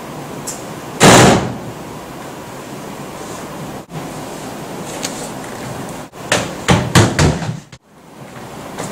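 Steady hiss, with a loud brief rustling thump about a second in and a quick run of knocks and clunks about six to seven seconds in, most likely from the school bag being handled on the desk.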